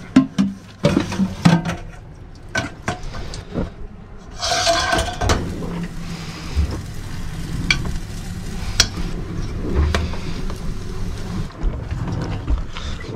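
Pancake cooking in a small galley: a metal whisk and bowl clatter in a stainless steel sink. Then batter is poured into a hot frying pan and sizzles, with scattered clinks of utensils.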